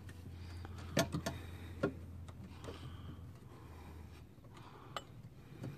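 A few scattered light clicks and ticks of pliers gripping and working at a plastic zip tie, over a low steady hum that cuts off about four seconds in.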